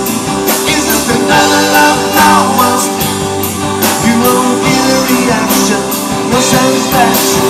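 Live southern rock band playing: electric guitars and a drum kit with a steady beat, with some singing, recorded loud and close.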